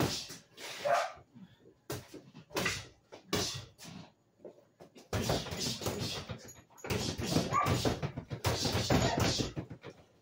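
Boxing-glove jabs landing on a punching dummy and a double-end bag: single hits at first, then a fast flurry from about five seconds in, with short sharp breaths and grunts on the punches.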